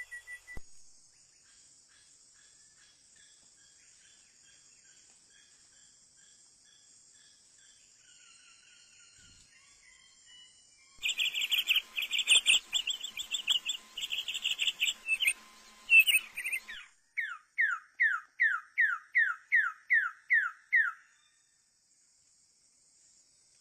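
Wild birds calling: faint scattered calls at first, then about halfway through a loud burst of rapid, repeated calls, followed by a run of about ten quick whistled notes, each falling in pitch. A steady high-pitched insect drone sits underneath for most of it.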